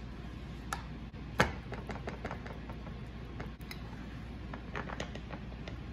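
Serving utensils clicking and knocking against pans and a glass plate as food is dished up: a few light clicks and one sharper knock about a second and a half in, over a steady low hum.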